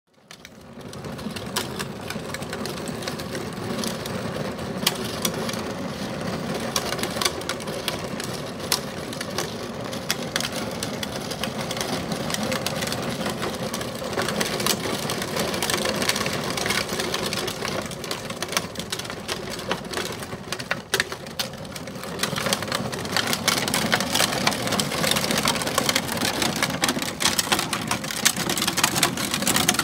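Child's ride-on toy tractor rolling along a cracked asphalt path: a steady mechanical whir with its hard plastic wheels rattling and clicking over the rough surface. It grows louder in the last third, when it is close by.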